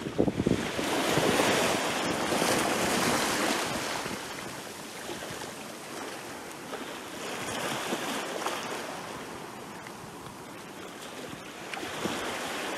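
Small sea waves lapping and breaking at the water's edge, the wash swelling and easing in slow surges, with splashes at the start and again near the end.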